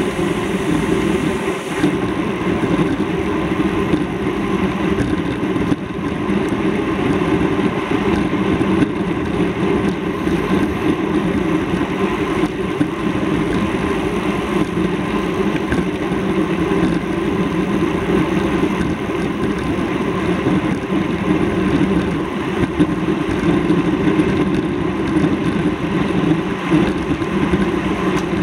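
Steady, loud rumble of a vehicle on the move, with no sudden events.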